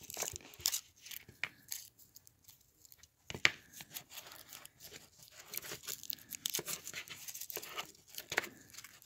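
Thin foil wrapper of a Hershey's dark chocolate being peeled and crinkled by fingers: irregular crackling and rustling, with one sharper crackle about three and a half seconds in and busier crinkling after it.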